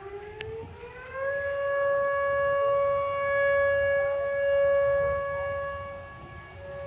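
Outdoor tornado warning siren sounding its steady test tone: it winds up in pitch over the first second, then holds one steady note. The note swells and fades as the siren rotates.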